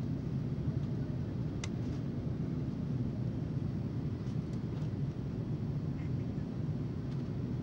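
Steady low rumble of a jet airliner in flight, engine and airflow noise heard inside the passenger cabin, with one faint click about a second and a half in.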